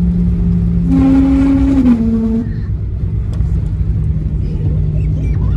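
Boeing 737-800 cabin noise during landing: a steady low rumble of the engines and airframe on the runway. A brief steady humming tone sounds about a second in and steps down slightly in pitch before fading.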